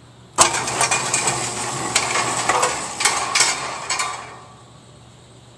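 Rattling and clicking of 9mm cartridges being handled and loaded into the Kel-Tec PF9's magazine, starting with a sharp knock about half a second in and fading out after about four seconds.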